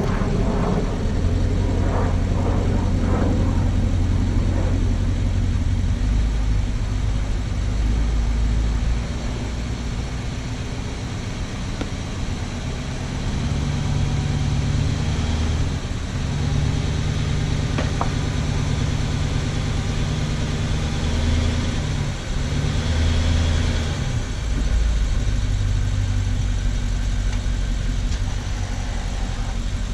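BMW X5 engine idling and running at low revs under light load as the SUV is driven slowly onto drive-on ramps; a low, steady hum that steps up and down a few times.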